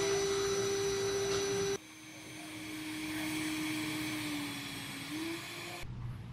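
DeWalt cordless drill whining at a steady high speed as it drills into a steel rifle barrel. It breaks off abruptly about two seconds in, then runs again a little lower in pitch, sagging and picking back up before stopping near the end.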